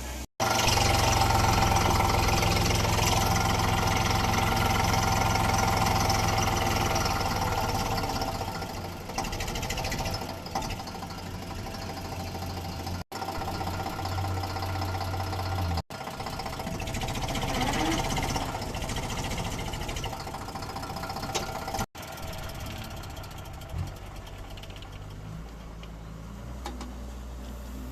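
Engine of a rice harvesting machine running steadily, loudest in the first several seconds, with brief dropouts where separate clips are joined.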